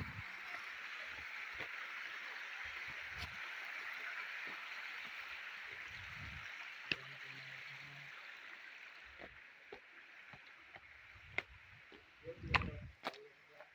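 Faint rushing of flowing stream water, fading after about nine seconds, with scattered light clicks and knocks and a louder cluster of knocks near the end.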